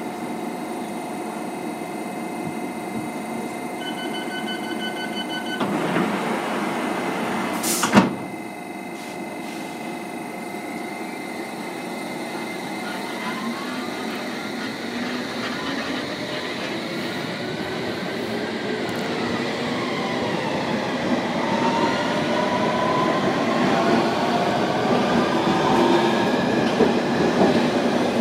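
London Underground S Stock train: a rapid run of door-closing warning beeps about four seconds in, the doors shutting with a sharp knock about eight seconds in, then the train pulling away, its electric traction motors whining and rising in pitch as it gathers speed and growing louder.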